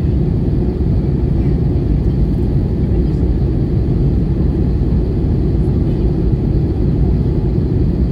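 Steady low roar inside a jet airliner's cabin: engine noise and rushing airflow on the descent to landing, even and unbroken.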